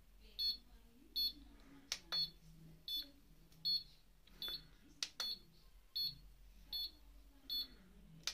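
Handheld mini HIFU face-tightening device beeping as it fires its ultrasound shots: short high beeps about every three-quarters of a second, with a few sharp clicks between them.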